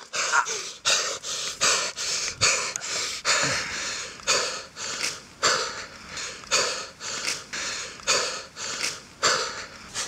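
A man breathing hard and fast in rapid, rhythmic breaths, about two a second, in the exertion of a strangling struggle.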